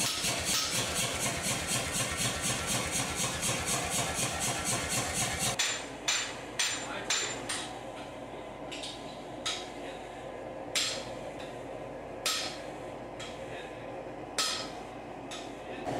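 Hammering hot steel on an anvil while forging the eye of a hewing axe. Quick, even blows over a steady machine hum stop abruptly about five and a half seconds in. After that come separate, heavier sledgehammer strikes, about one a second, as a striker hits the glowing piece held on the anvil.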